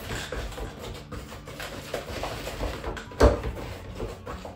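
Hand potato masher pressing boiled potatoes and milk in a mixing bowl on a wooden chopping board: repeated irregular knocks as it strikes the bowl, with one loud thump about three seconds in.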